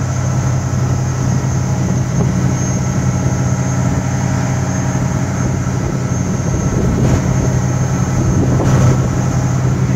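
Motorboat engine running steadily at speed, a deep even drone over the rush of water from the wake.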